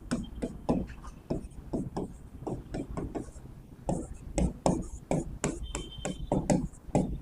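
Writing on a board: a string of irregular taps and short scrapes as letters and structures are drawn.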